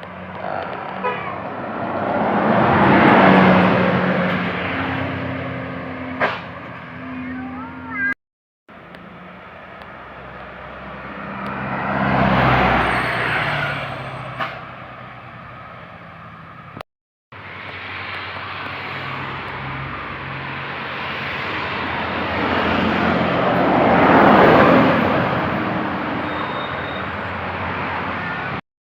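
Buses driving past one after another: three separate pass-bys of engine and road noise, each swelling to a peak and fading away, with the sound cutting out briefly between them.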